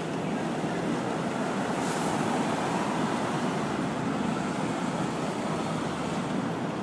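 Steady noise of city street traffic, with a brief hiss about two seconds in.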